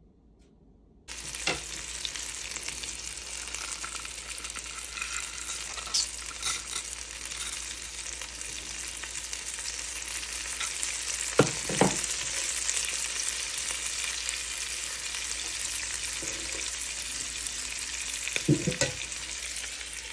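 Marinated fish pieces sizzling steadily as they fry in oil in a pan, starting about a second in. A few sharp knocks sound over the sizzle, twice near the middle and again near the end.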